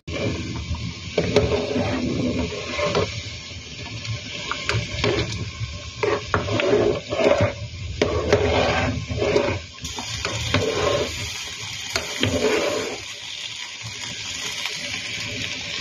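Pan of ginataang bilo-bilo bubbling at a simmer in thick coconut milk, with irregular sloshing in the first part, then a steadier bubbling hiss.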